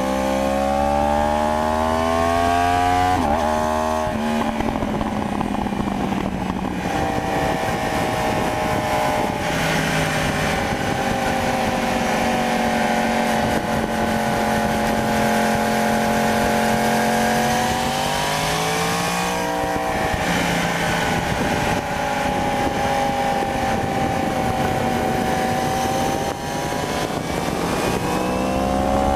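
Yamaha R1 (2015) crossplane inline-four engine running under way, with wind rush. The engine pitch climbs over the first few seconds and drops about four seconds in as a gear is changed. It then holds a steady cruising note, rising again about two-thirds of the way through and near the end.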